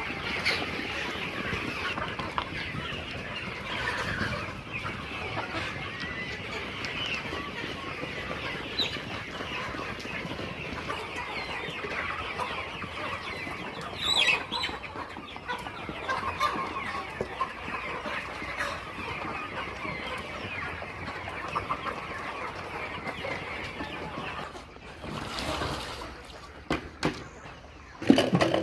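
A flock of young layer chickens clucking and cheeping continuously, many birds calling over one another. A few louder sharp knocks or rustles break in about halfway and again near the end.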